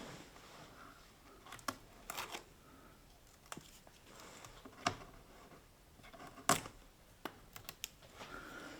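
Backing film being peeled off the iMac's screen adhesive strips: scattered small clicks and short crinkling, tearing sounds, a few sharper snaps among them.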